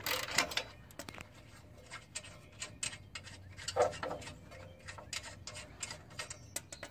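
Ratchet wrench clicking in a run of quick, uneven strokes as it works a catalytic converter bolt loose.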